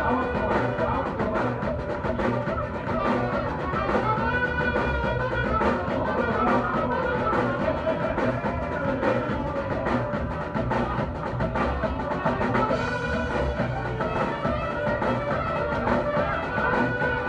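Live band playing an instrumental huapango tune, with a drum kit keeping a steady beat under sustained melody instruments.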